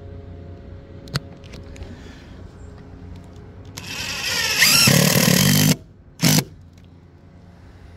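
DeWalt cordless impact driver driving a 3/8-inch hex-head screw through the metal base plate of a conduit riser's roof flashing. It runs for about two seconds with a rising whine, then gives one short second burst to snug the screw down.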